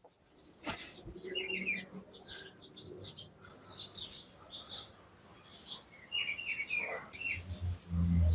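Small birds chirping: quick runs of short falling chirps about a second in and again around six seconds in, with scattered single chirps between. A louder low, muffled thumping comes in near the end.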